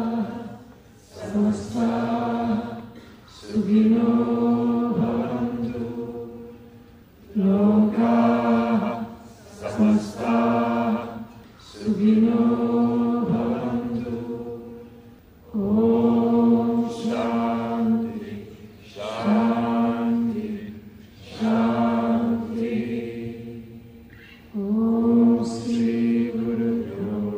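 A large crowd of men and women chanting a devotional mantra in unison: sung phrases held on a steady pitch, repeated over and over with short breaks between them.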